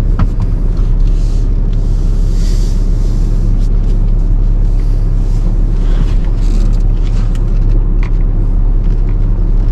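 Tow truck running slowly in four-wheel drive, a loud steady low rumble with scattered light knocks.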